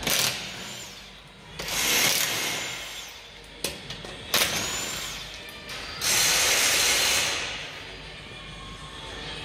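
Impact wrench run in four bursts of a second or so each, spinning off the 21 mm front wheel nuts. A rising whine comes in as it spins up, and music plays underneath.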